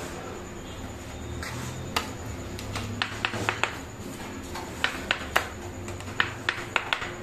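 Flat metal spatula chopping a bread omelette on a steel plate: about a dozen sharp taps of the blade striking the plate, in quick runs of three or four, over a low steady hum.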